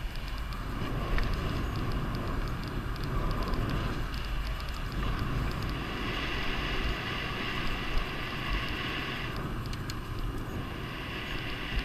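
Wind buffeting the camera microphone over the rumble of mountain bike tyres rolling fast on rough, patched asphalt. The deep rumble eases a little about halfway through.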